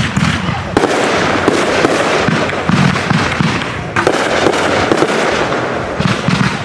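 Backyard consumer fireworks going off in a continuous loud barrage of dense crackling and pops. Fresh volleys start about a second in and again about four seconds in.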